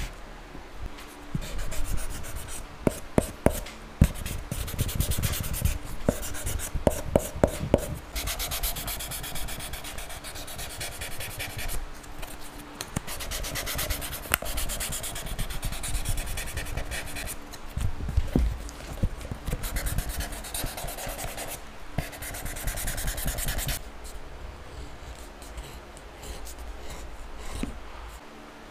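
Leather strap edges being worked by hand with rapid back-and-forth rubbing strokes, in three stretches of a few seconds each, after a run of sharp taps and knocks in the first several seconds.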